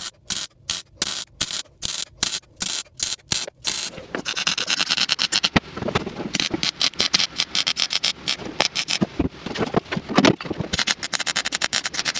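MIG welder stitch-welding sheet-metal floor seams. Short bursts of arc crackle come about four a second for the first few seconds, then give way to longer, nearly continuous crackling runs.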